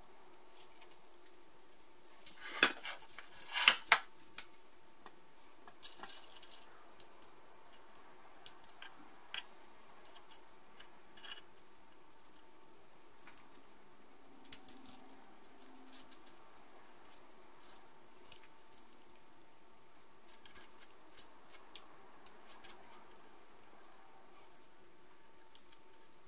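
Spoons scooping sticky coconut macaroon mixture from a china bowl and pressing it into paper liners in a metal muffin tin: scattered light clicks and scrapes, with the loudest cluster of knocks a few seconds in.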